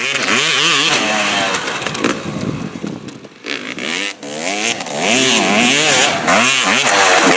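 Yamaha WR250 two-stroke single-cylinder enduro bike engine revving up and down again and again under the rider's throttle. The revs ease off a little past three seconds, then come back with a string of quick rises and falls.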